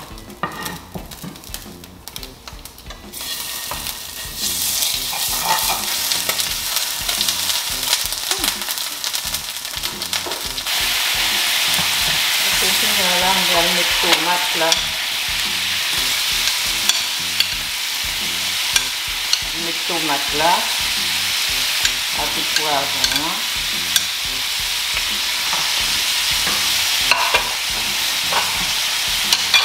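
Sliced tomato and onion frying in hot oil in a nonstick pan, stirred and scraped with a wooden spoon. The sizzle is quiet at first, builds a few seconds in and grows louder again about eleven seconds in, with spoon clicks on top.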